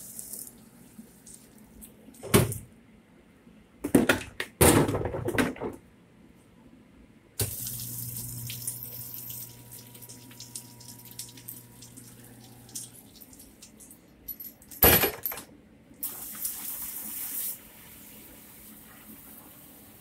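Water running and splashing in a commercial dishwasher, broken by several loud knocks and clatters. For about five seconds in the middle a steady hum runs under the rushing water.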